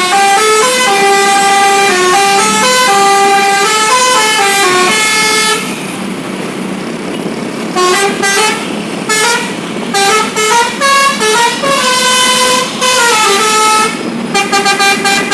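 Basuri telolet horn, a multi-tone bus horn, playing a stepped melody of held notes, then after a pause of about two seconds more short melodic phrases, ending in a run of rapid short toots.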